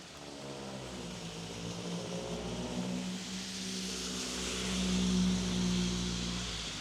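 A vehicle passing on a wet road: engine hum and tyre hiss swell to a peak about five seconds in, then ease off over the steady rain.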